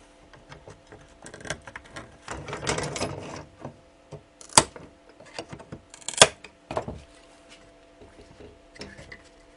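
Screwdriver scraping and prying at glued-on components on a circuit board, with scratching and two sharp clicks about four and a half and six seconds in.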